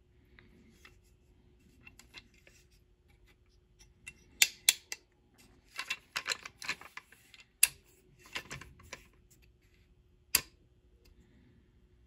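Sharp metallic clicks and knocks as an AR-15 lower receiver with a drop-in trigger is handled and turned over: two loud clicks about four seconds in, a cluster of clicks and rattles a little later, and one last loud click near the end.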